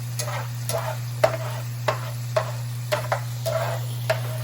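Spatula scraping and stirring scrambled eggs in a buttered frying pan, short strokes about two a second, over a steady low hum.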